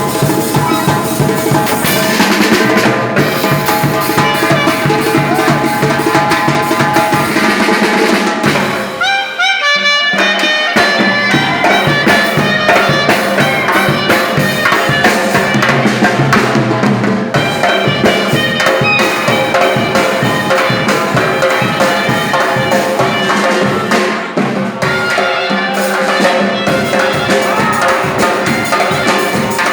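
Loud band music with a steady drum beat and a brass lead; about nine seconds in the band drops out briefly for a quick run of notes, then comes back in.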